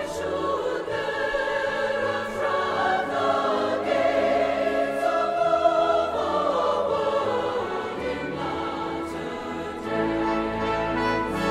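Background music: a choir singing with orchestral accompaniment.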